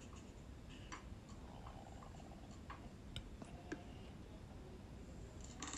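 Faint, irregular clicks and taps of a knife blade against a small glass jug as used soft plastic lures are chopped up inside it, with a few sharper taps in the middle.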